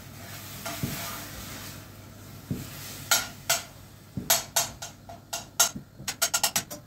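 Budgerigar tapping and pecking its beak against a hanging plastic cage toy: a run of sharp little clicks that starts about three seconds in and comes faster toward the end, with a few soft thumps before it.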